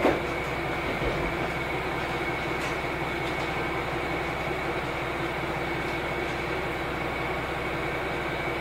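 Onboard running sound of a JR Hokkaido KiHa 201 series diesel railcar under way: a steady rumble of the train running, with a constant high whine underneath. There is a single sharp knock right at the start.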